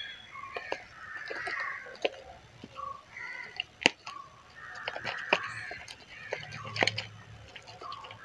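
Slime being stirred in a bowl just after borax activator is added: repeated wet, sticky squelching with sharp clicks, the sound of the mix thickening as it sets.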